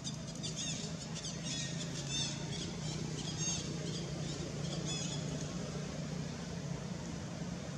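A quick series of short, high-pitched chirping squeaks from small animals, bunched in the first five seconds. A steady low hum runs under them.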